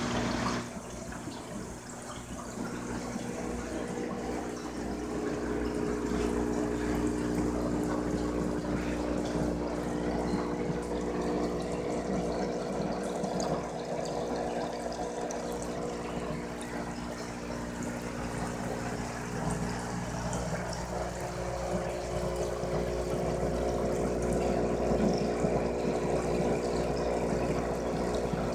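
Aquarium pump humming steadily, with water bubbling and running.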